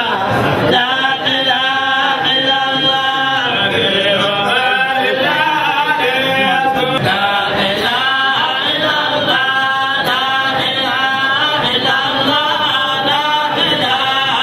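Men's voices chanting a Sufi religious chant together, unaccompanied, in long sustained melodic lines.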